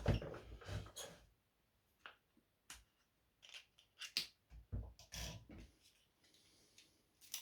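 A dozen or so light, irregular clicks and knocks from handling small hard objects, with a rustle in the first second.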